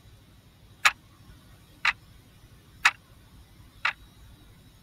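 Clock-tick sound effect, one sharp tick a second, five ticks, timing the pause for answering a quiz question.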